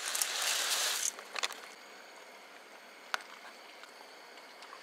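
Dry pasta and sauce mix poured from a packet into a pot of boiling water: a hissing rustle for about a second, then a few light clicks and taps.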